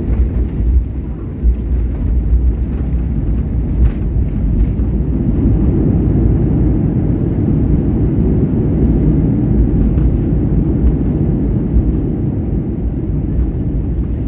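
Airliner cabin noise during the landing roll: a loud, steady low rumble of the jet's engines and wheels on the runway.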